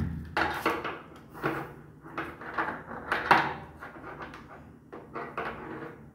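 Irregular clinks and knocks of metal plumbing fittings and a braided steel hose being handled against a water heater tank while the inlet is connected, with one louder knock about three seconds in.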